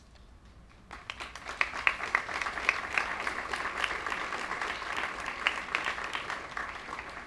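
Audience applauding: the clapping starts about a second in and begins to die away near the end.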